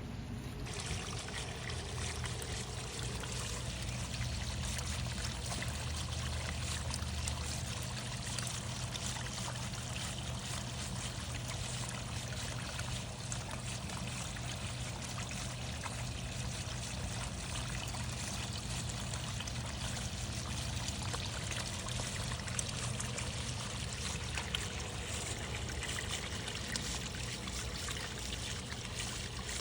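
Tetra Pond waterfall spillway running, water trickling and splashing steadily into the pond, with a steady low hum underneath.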